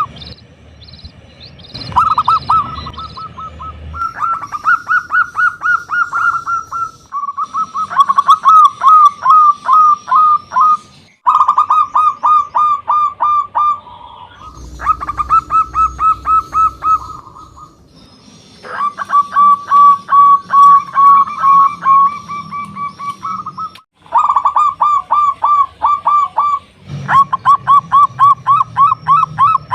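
Zebra dove (perkutut) cooing in fast runs of short, clipped notes, phrase after phrase. The runs break off suddenly several times, as in a spliced recording.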